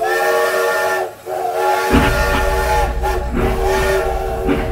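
Steam locomotive whistle sounding in several long blasts with short breaks between them, and a low train rumble coming in about two seconds in.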